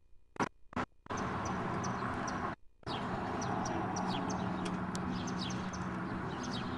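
Birds chirping many times over, short quick chirps, over a steady hum of street traffic. The first second is near silent apart from a few clicks, and the sound drops out briefly near the middle.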